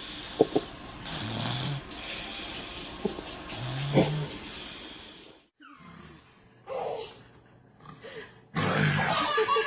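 A person snoring: two rasping snores about two and a half seconds apart, stopping about five and a half seconds in.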